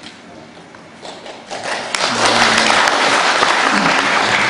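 An audience applauding, starting about a second and a half in and staying loud and even.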